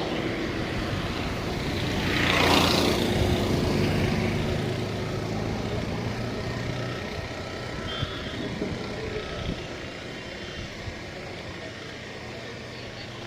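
A motor vehicle passing close by on the road, its noise swelling to a peak about two and a half seconds in and then fading away, leaving steady road traffic in the background.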